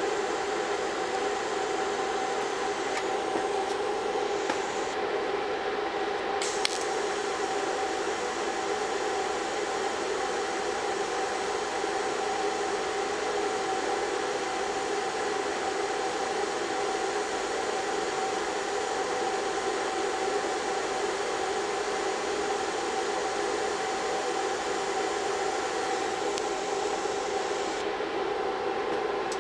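TIG welding arc on thin sheet steel, a steady hiss with a hum, as filler rod is fed in to fill torn, thinned-out metal along a seam. The arc stops near the end.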